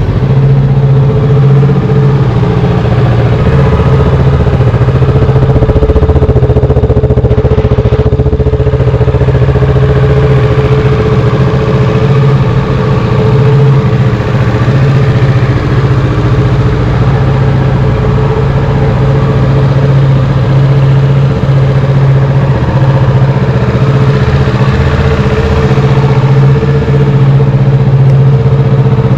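Kawasaki Z650 RS's 649 cc parallel-twin engine idling steadily and loudly through its stock exhaust, just after being started.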